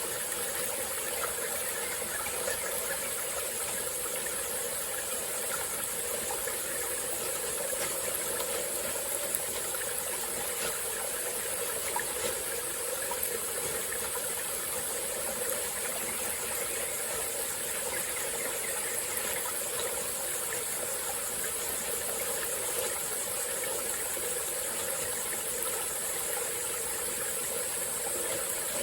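Small forest stream flowing and trickling steadily, with an even high hiss over it.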